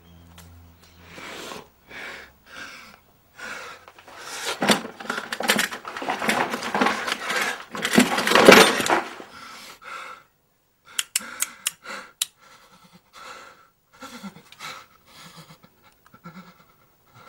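A person panting heavily, the breaths loudest and most rapid from about four to ten seconds in. A few sharp clicks follow, then fainter breathing.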